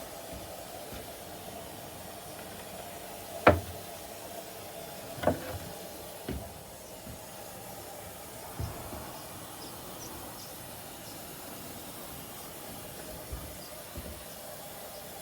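LG washing machine running, a steady hum with a few sharp knocks, the loudest about three and a half seconds in.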